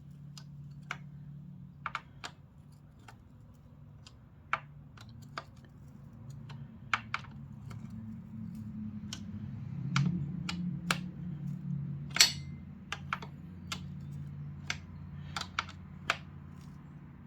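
Scattered sharp metallic clicks of a wrench working the chain adjuster bolts on a Yamaha MT-09's swingarm, irregularly spaced at about one or two a second, over a low steady hum.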